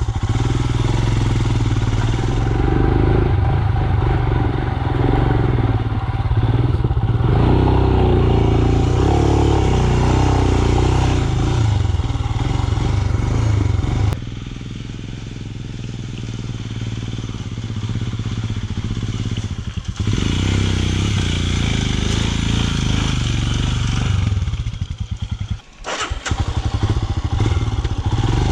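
Royal Enfield Himalayan's 411 cc single-cylinder engine running as the motorcycle is ridden up a rough off-road track. The engine eases off for several seconds midway, and a sharp knock comes near the end.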